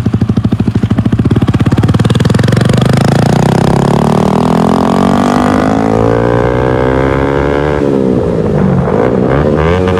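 A loud vehicle engine accelerating: its pitch climbs steadily for about six seconds, drops and wavers around eight seconds in, then climbs again.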